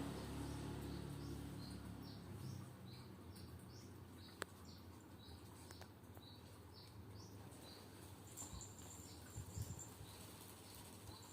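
Small bird cheeping: a faint series of short, high chirps, roughly two a second, with one sharp click about four seconds in. A low rumble fades away over the first couple of seconds.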